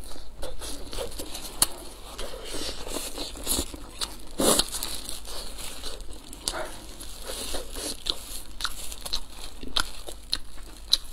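Crisp crust of pan-fried stuffed flatbreads (xianbing) tearing and crackling as gloved hands pull them apart, with the crinkle of thin plastic gloves. A run of short crackles, one louder about four and a half seconds in.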